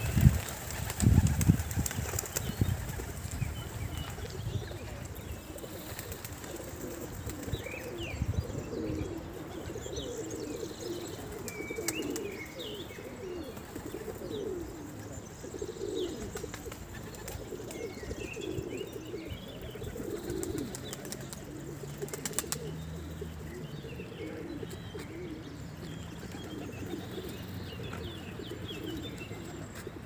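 A flock of feral pigeons taking off with loud wing-flapping in the first couple of seconds, then pigeons cooing over and over, with small birds chirping now and then.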